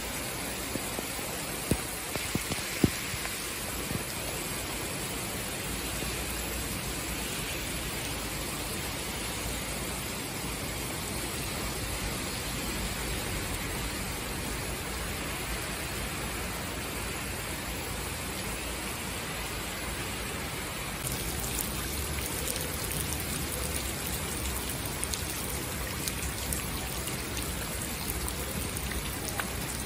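Heavy rain pouring down steadily in a downpour, with a few sharp taps a couple of seconds in. About two-thirds of the way through, the sound turns brighter and a little louder: rain splashing onto standing floodwater on a road.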